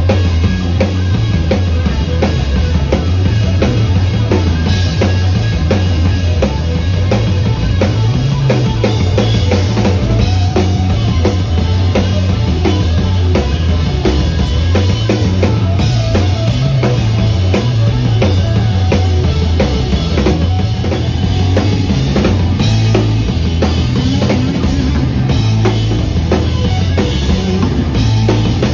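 Live rock band playing loud: a busy drum kit beat with snare and bass drum hits under electric guitar, with a heavy low end.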